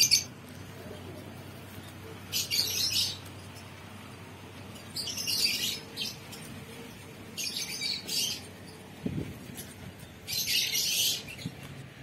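A small bird chirping in short high-pitched bursts, four of them about two and a half seconds apart, over a faint steady background.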